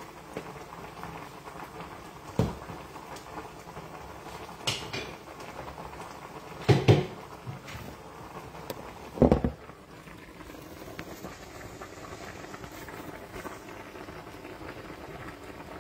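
Pot of peanut soup simmering with a steady bubbling hiss, broken by a few knocks and clatters; the loudest are a double knock about seven seconds in and another a little over two seconds later.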